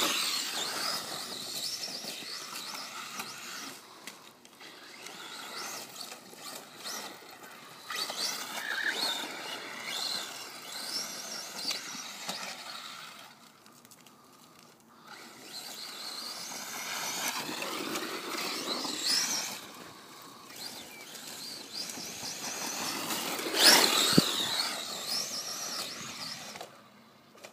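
Kyosho DBX 2.0 VE electric RC buggy's brushless motor whining, its pitch rising and falling as the throttle is worked on sand. It swells loudest several times as the car comes close and fades in between.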